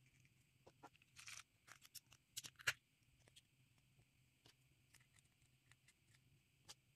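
Small hard-plastic clicks and a brief crinkle from tiny clear plastic packaging being handled, a quick cluster starting about a second in with the sharpest click at its end, then a few faint ticks.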